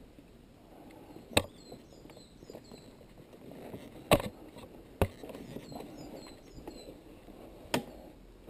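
Honda dirt bike with its engine off being handled over rough forest ground: a low rustle and scrape with four sharp knocks, the loudest about four seconds in.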